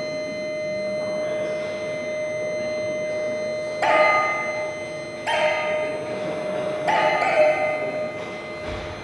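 Live electronic performance music: a steady held tone, with three sudden ringing strikes about a second and a half apart in the second half.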